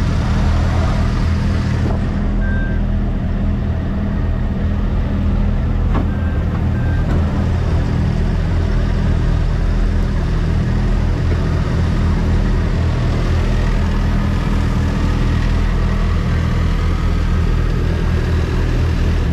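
Truck's diesel engine running steadily as the truck pulls away at low speed. A few short high beeps sound a couple of times.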